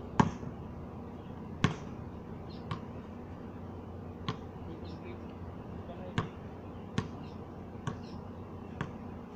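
A basketball bouncing on a concrete court: about eight sharp, irregularly spaced thuds, the two loudest in the first two seconds.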